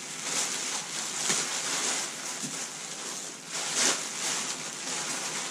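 Clear plastic packaging bag crinkling and crackling as it is pulled and torn open by hand, with the paper wrapping inside rustling. The crackles come irregularly, the loudest one nearly four seconds in.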